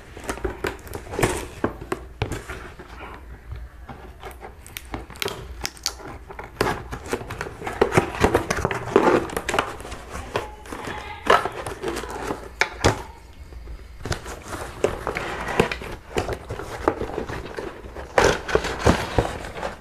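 Cardboard packaging being handled and opened by hand, with crinkling plastic wrap and irregular taps, scrapes and rustles.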